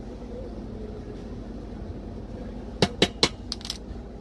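Three quick sharp taps about a quarter second apart, then two fainter ones, from a measuring spoon knocked against a hard surface to empty out a spice, over a low steady kitchen hum.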